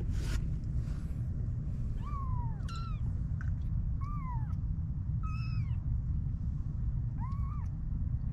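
Young kittens, about 25 days old, mewing: about five short, high-pitched cries, each rising and then falling in pitch, a second or so apart. Under them runs a steady low rumble.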